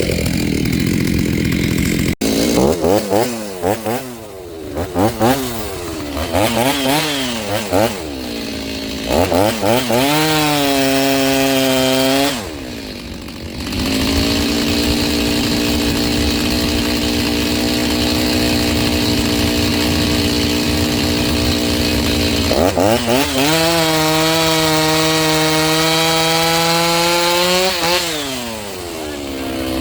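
Stihl MS 390 chainsaw with a freshly fitted Hipa rebuild kit, its engine still breaking in. It is blipped in a string of short revs, then held at high revs for long stretches, running lower in pitch for about eight seconds in the middle before climbing again and dropping off near the end.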